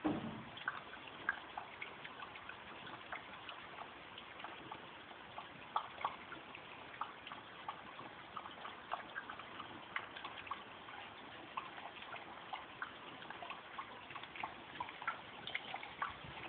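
West Highland terrier lapping water from a plastic bowl: quick, irregular wet laps and splashes, several a second, with a bump at the very start.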